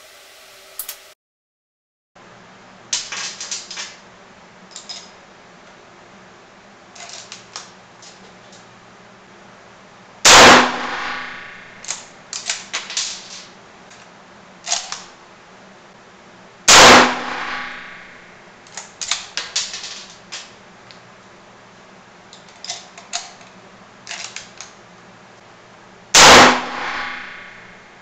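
Three shots from a .303 British Lee-Enfield bolt-action rifle fitted with a muzzle brake tuner, each a very loud crack that echoes in the small range room, the shots six to nine seconds apart. Between the shots come quick clusters of metallic clicks and clacks as the bolt is worked and spent brass is ejected.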